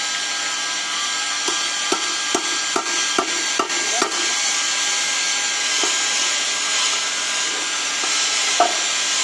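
Metal rod knocking against a metal permanent mould to free freshly cast aluminium-composite bars: a quick run of about seven sharp metallic knocks, then two more spaced a few seconds apart. A steady loud rushing noise runs underneath.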